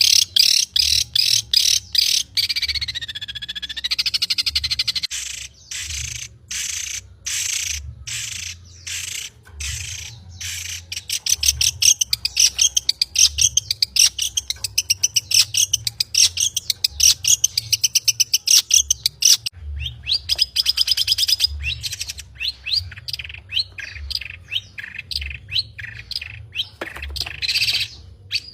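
Long-tailed shrike (cendet) singing: a loud, rapid, varied stream of chattering and whistled notes, including fast runs of repeated notes and a warbling glide near the start.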